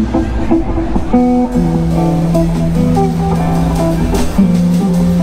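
Live band playing: electric guitars picking out notes over a drum kit, with a long held low note coming in about one and a half seconds in.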